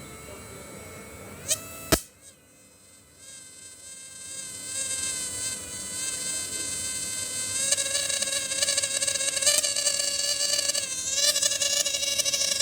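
Electric fishing machine's 12 V to 1200 V inverter whining with a high buzz. Two sharp clicks come about two seconds in, and after them the whine comes back and grows louder over several seconds.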